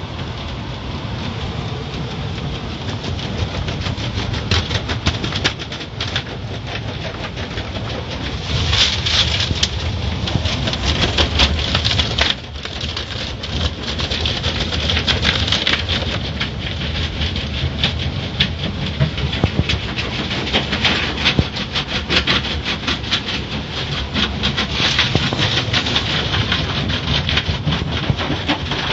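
Spinning cloth brushes of an automatic car wash slapping and scrubbing over the car's glass and body, heard from inside the car: a dense, rapid patter of strikes over a steady rushing noise.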